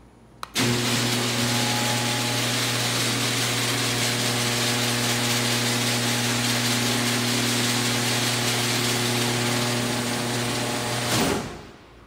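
A click, then a Genie overhead garage door opener's motor starts and runs steadily for about ten seconds, drawing a one-piece tilt-up garage door closed. The door is working normally. A brief louder surge comes near the end as the door seats and the motor stops.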